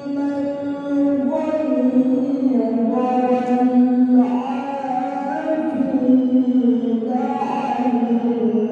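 A male qari reciting the Quran in melodic tilawah style, holding long drawn-out notes that step and glide up and down in pitch.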